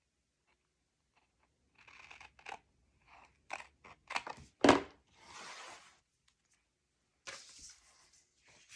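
Cardstock being handled on a work surface: rustling and a few sharp clicks, one louder knock about halfway through, then a second or so of paper sliding, and more rustling near the end.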